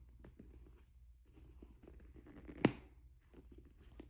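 A handbag being handled: faint light rustles and taps, with one sharp click of its hardware about two and a half seconds in.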